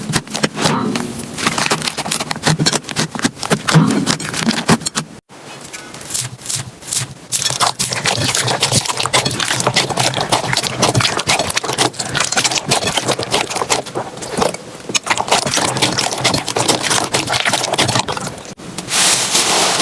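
Slime being squeezed, poked and stretched by hand, giving dense, irregular sticky crackles and pops. There is a brief break about five seconds in.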